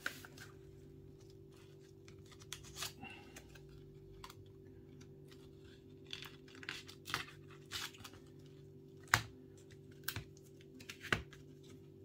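Pry tool working under a glued-in iPad battery: scattered small clicks and scrapes, with a sharp click about nine seconds in and another near eleven, over a steady low hum. The battery is still held by its adhesive and not yet coming free.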